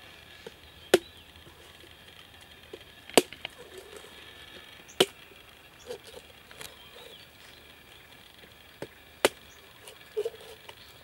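Knife chopping into the husk of a young green coconut to open it: four sharp chops spaced a few seconds apart, with a few lighter knocks between.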